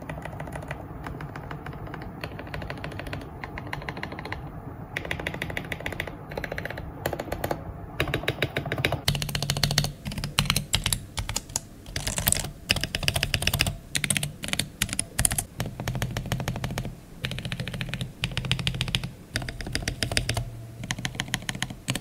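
Rapid, continuous typing on a mechanical keyboard, a sound test of its switches before and after lubing. About nine seconds in, the keystrokes turn sharper and louder.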